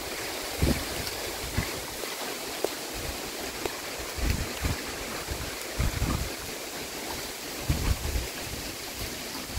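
Strong gusty wind rustling through tree leaves in a steady hiss, with gusts buffeting the microphone several times.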